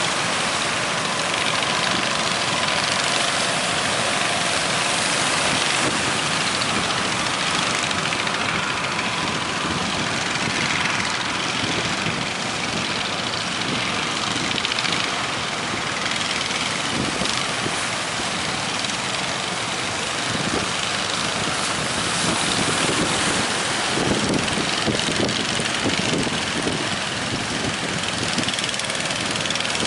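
Fishing boat's engine running steadily under an even rushing noise of strong wind and waves.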